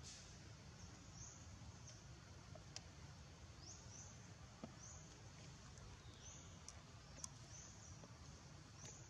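Near silence: faint outdoor forest ambience, a steady low hiss with a short high chirp repeated about once a second and a few faint ticks.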